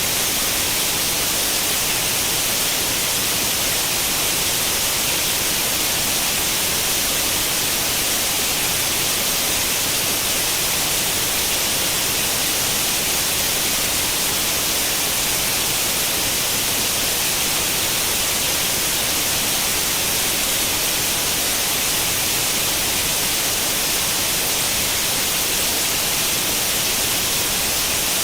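Steady white noise like the static hiss of an old CRT television tuned to no channel, even and unchanging, brightest in the high frequencies.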